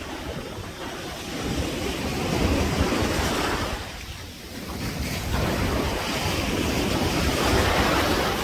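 Sea surf breaking and washing up the shore, with wind buffeting the microphone. The wash swells, drops away briefly about four seconds in, then builds again as the next wave comes in.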